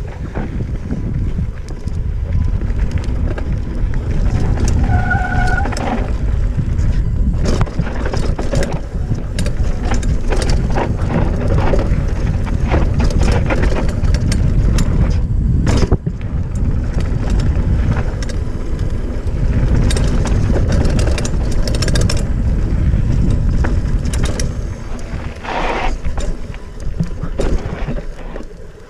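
Wind buffeting the microphone of a helmet-mounted action camera on a downhill mountain bike run, with tyre noise on the dirt trail and many sharp rattles and knocks from the 27.5+ hardtail bike over bumps.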